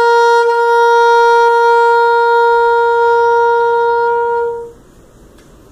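Saxophone holding one long, steady note, the closing note of the tune, which fades out about four and a half seconds in.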